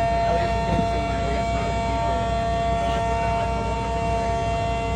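Mini sirens sounding together in a steady chord, holding their pitch without winding up or down.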